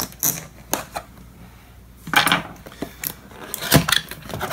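A knife cutting through the tape on a cardboard box, with a few sharp scrapes and taps, then a rasping tear about two seconds in as the box's cardboard flaps are pulled open, and a sharp knock near the end.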